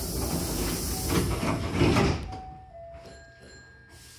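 Hankyu train's double sliding doors closing: a hiss of compressed air that fades out, then the door panels thumping shut about two seconds in.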